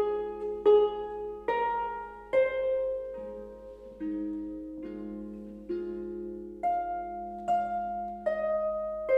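Concert pedal harp played solo: a plucked note or chord about once a second, each left ringing and fading over sustained low notes.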